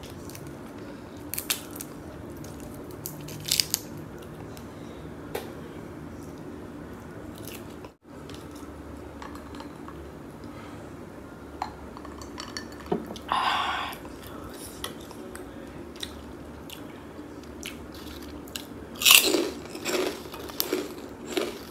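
Close-miked mukbang eating: chewing and biting on boiled seafood, with scattered small clicks and smacks. A louder burst of crunchy clicks comes near the end.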